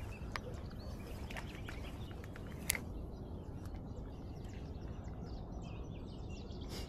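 Small birds chirping, many short faint calls mostly in the first half, over a steady low outdoor background noise, with one sharp click about two and a half seconds in.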